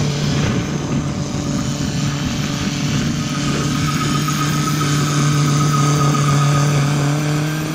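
Kubota L5018 tractor's diesel engine running steadily under load at one even pitch, driving a rotary tiller through dry soil. A thin whine joins about three seconds in.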